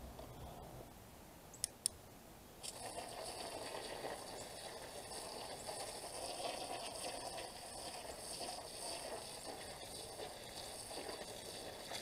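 Two sharp clicks, then a garden hose spraying water onto bare soil, starting suddenly about three seconds in and running steadily.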